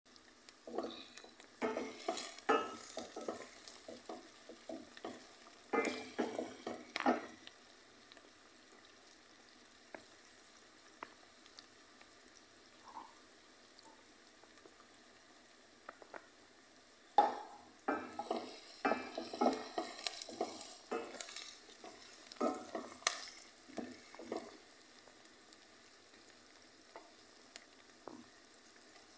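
Wooden spoon stirring sliced onion, ginger and garlic frying in a stainless steel pot: two spells of scraping and knocking against the pot, with a faint sizzle of the frying between them.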